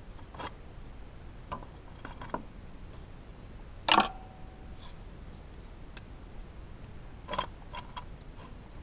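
Scattered metal clinks and knocks as a pry tool and the loosened fluid coupling bracket are worked out past the timing belt tensioner pulley, with one louder knock about four seconds in and a few quick clicks near the end.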